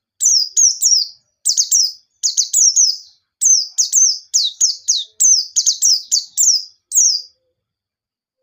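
White-eye (pleci) singing: rapid runs of high, sharp notes, each sliding downward, in short bursts of two or three, stopping about seven seconds in.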